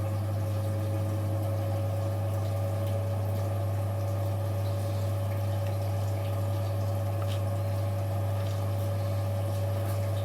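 Washing machine running with a steady low hum and a thin higher whine that creeps slightly upward, with a few faint ticks.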